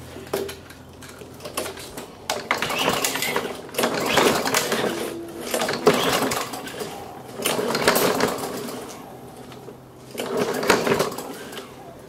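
Tecumseh 4 HP lawnmower engine being pull-started with its recoil cord, about five pulls, each a second-long rapid rattle of the engine cranking over. It never fires, even with starting spray in it and the primer pressed, which the owner takes as a sign that the carburettor needs servicing.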